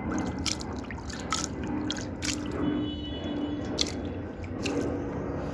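Water splashing and dripping into a vessel as it is cleaned and filled, in irregular splashes.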